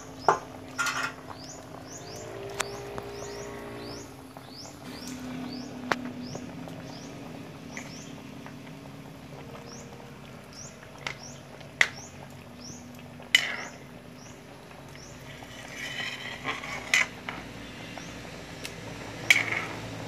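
A spatula knocks and scrapes against a wok while stirring bananas in a boiling pot, giving sharp clicks every few seconds over the bubbling. Short, high, rising chirps from a small bird repeat throughout, a few each second.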